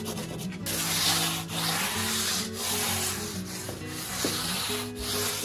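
Hand sanding a concrete countertop edge with 200-grit sandpaper on a sanding block, a rasping scrub in back-and-forth strokes about one a second, knocking down the high edges of the freshly cured concrete.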